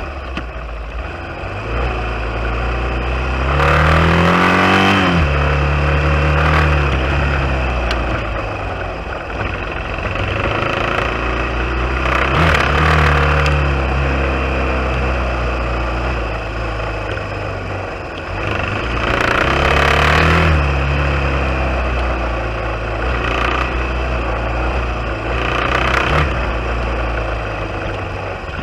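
Off-road motorcycle engine running under way. It revs up and eases off about four times, with a louder surge at each rise.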